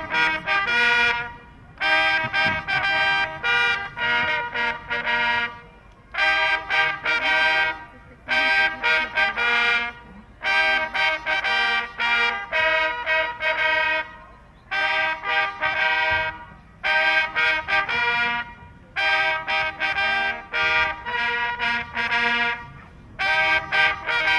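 A fanfare played by four trumpets together, in short phrases of chords with brief pauses between them.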